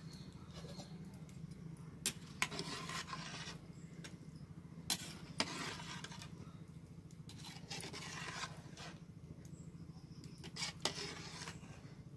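A metal ladle stirring kadhi with pakoras in an aluminium pot: several sharp clinks against the pot, each followed by a second or so of stirring noise, over a steady low hum.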